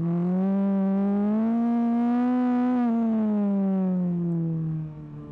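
BAC Mono R's 2.5-litre Ford Duratec four-cylinder engine pulling under load. Its note rises over the first couple of seconds, holds, then falls steadily from about three seconds in, dropping in level near the end as the driver comes off the power.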